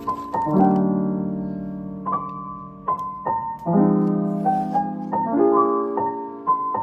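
Background piano music: soft chords struck about every one to one and a half seconds, each held and fading away.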